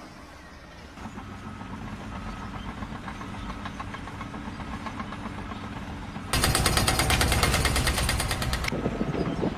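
Heavy machinery running with a steady engine sound, then a loud, rapid mechanical hammering starts about six seconds in and stops about two and a half seconds later.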